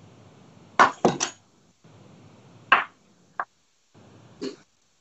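Kitchen knife chopping through a red chilli onto a wooden cutting board: six sharp knocks, three in quick succession about a second in, then single ones spaced out to near the end.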